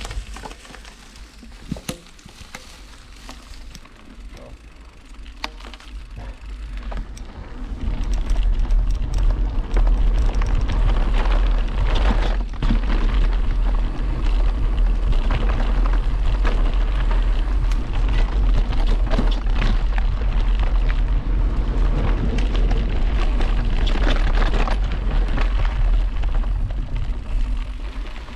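Mountain bike riding fast down a dirt forest trail: wind buffeting the microphone with a heavy rumble that grows loud about eight seconds in, over the crunch of tyres on the trail and frequent rattles and knocks from the bike.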